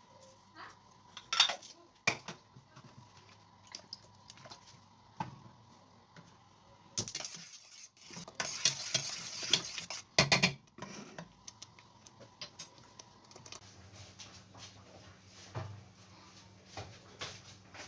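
A metal spoon clinking and scraping against a stainless steel pot while stirring thick tomato sauce. Scattered sharp clinks, then about seven seconds in a few seconds of louder scraping and stirring that ends in several sharp knocks.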